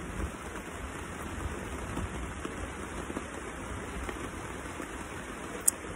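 Steady rain falling on the marquee and tent overhead, with a single sharp click near the end.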